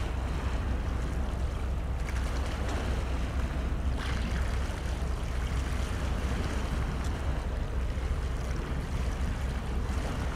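Wind rumbling steadily on the microphone over the wash of waves on open water.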